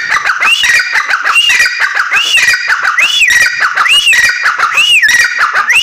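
Grey francolin (teetar), given as a female, calling loudly and without pause. It repeats a harsh, rattling phrase whose main note rises and falls about once a second.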